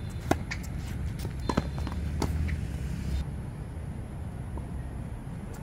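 Tennis ball struck by rackets and bouncing on a hard court in a rally opening with a serve: a sharp hit about a third of a second in, then further hits and bounces spaced a second or so apart, with footsteps.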